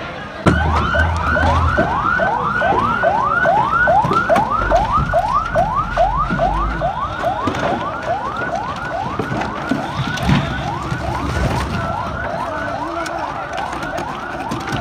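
Emergency vehicle siren sounding a fast yelp: a rising wail repeated about three times a second, starting abruptly about half a second in.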